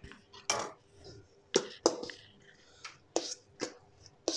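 A spoon stirring thick strained yogurt into grated beetroot in a stainless steel bowl, with irregular knocks and scrapes of the spoon against the bowl's metal side, about half a dozen sharp clinks.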